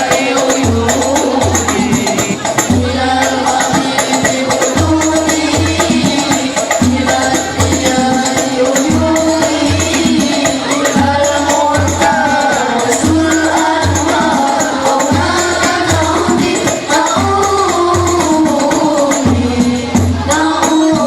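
Banjari sholawat performance: voices singing together over rebana frame drums, with a deep drum beat repeating steadily under many quick hand-drum strokes.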